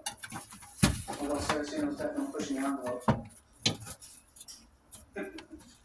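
A handful of sharp metallic clinks and knocks, the loudest about a second in, from metal range parts, screws and tools being handled.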